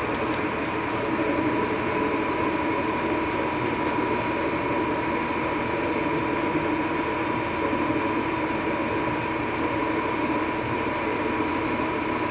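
Metal lathe running steadily: an even mechanical hum with a thin, constant whine, unchanging throughout.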